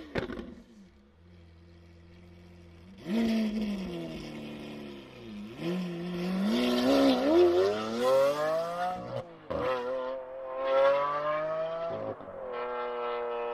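Lamborghini Aventador LP700-4's 6.5-litre V12 idling quietly, then revved hard several times from about three seconds in, the pitch sweeping up and down. It then pulls away under acceleration, with a brief break in the note near the end as it shifts, before a steady, slowly rising engine note.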